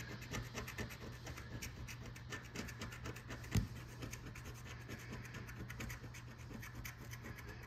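A coin scratching the coating off a lottery scratch-off ticket in many quick strokes, with one louder knock about three and a half seconds in.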